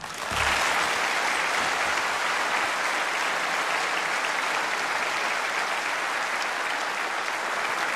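Studio audience applauding: a dense, steady wash of clapping that eases off slightly near the end.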